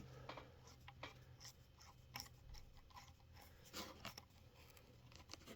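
Faint, irregular small clicks and scrapes of a small wrench working the side-rod screw on the driving wheel of an O-gauge model steam locomotive, loosening it to take the side rod off.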